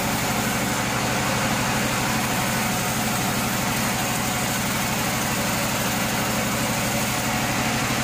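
Vertical band sawmill running with its blade sawing lengthwise through a large log as the carriage feeds it past. The sound is a steady low motor hum under an even hiss of the cut.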